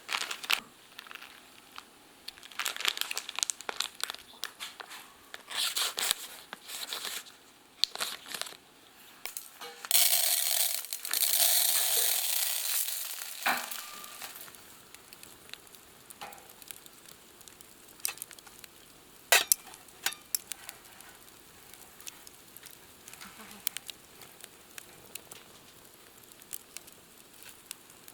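Crinkly rustling and scattered clicks of handling around the cooking, then about ten seconds in a loud sizzle that starts suddenly and fades away over some four seconds, as food goes onto a hot pan over the campfire.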